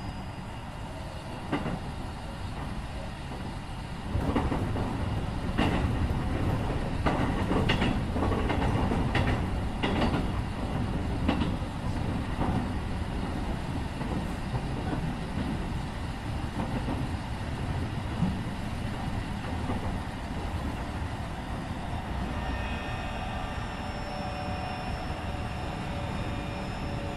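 Keikyu 1500 series electric train car, refitted with Mitsubishi IGBT-VVVF equipment, running on the rails, heard from inside the car. A run of sharp wheel clicks over rail joints comes about four to twelve seconds in, and faint steady whine tones sit under the running noise near the start and again near the end.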